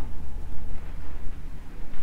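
A low rumble that rises and falls in level, with nothing clear above it.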